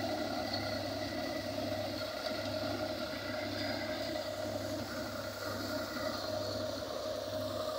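New Holland 3630 tractor's three-cylinder diesel engine running steadily under load, driving a Vishwakarma thresher through the PTO while mustard is being threshed. The engine and the thresher's drum and fan make one continuous mechanical drone.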